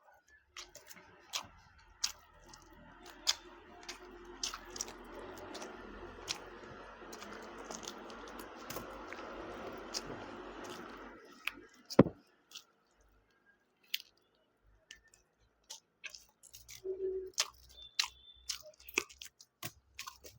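Close-miked chewing and mouth sounds, with sharp wet clicks scattered throughout and a louder click about twelve seconds in.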